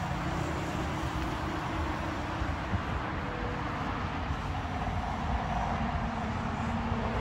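A small dirt bike's engine running at a distance, a faint drone that rises slightly, over a steady low rumble.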